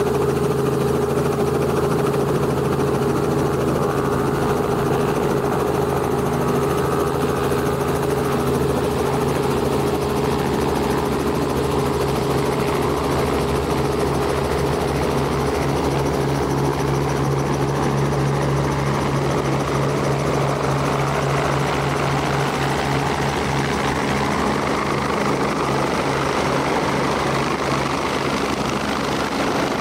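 Helicopter running with a steady turbine whine and rotor thrum. The rotor beat pulses more strongly in the middle, and a rushing noise builds toward the end as the power comes up.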